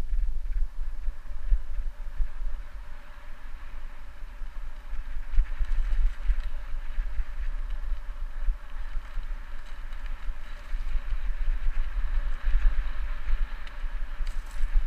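Mountain bike rolling fast over a dirt singletrack. Tyre and trail noise sits under a constant, uneven low rumble of wind buffeting the camera microphone.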